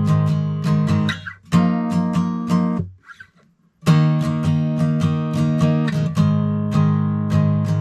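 Acoustic guitar strummed in chords, with a brief break of under a second near the middle before the strumming picks up again.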